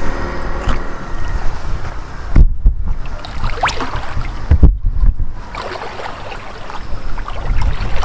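Wind buffeting the microphone in a low rumble, with two strong gusts about two and a half and four and a half seconds in, over water sloshing around a man's legs as he wades in shallow water. A short rising sweep is heard between the gusts.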